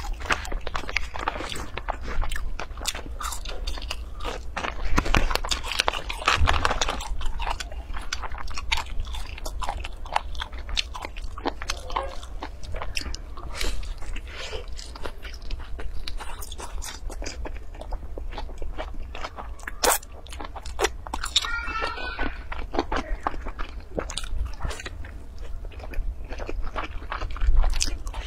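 Close-up mukbang eating sounds: biting into and chewing pan-fried stuffed buns with crisp, browned crusts, in a dense run of crunchy bites and chews.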